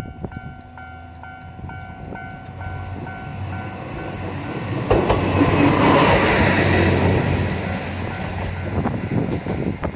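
Japanese level-crossing alarm bell ringing about three strokes a second while a Kanto Railway KiHa 2200 series diesel railcar approaches. The railcar's engine and wheels grow louder and are loudest as it passes, from about five seconds in, then ease off.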